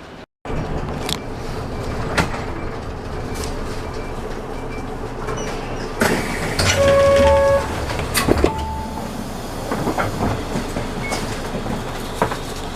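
Isuzu Erga city bus idling while its door mechanism works, with scattered clicks. About halfway there is a louder stretch with a low rumble and a few short tones stepping down in pitch, followed by sharp knocks as the door moves and latches.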